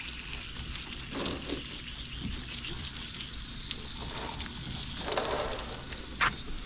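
Garden hose spraying water onto a boat and its trailer: a steady hiss with splashing, and one brief sharp tap near the end.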